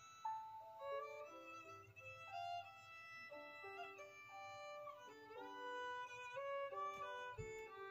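Background music: a violin playing a melody, its notes changing quickly and now and then sliding from one pitch to the next.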